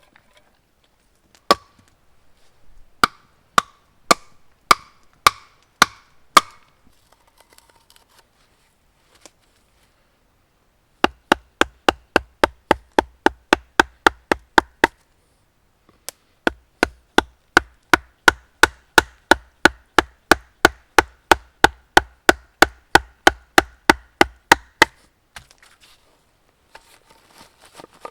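Hatchet chopping into wood: a few spaced blows with a slight ring, then two long runs of quick, even strokes, about three a second, with a brief pause between them.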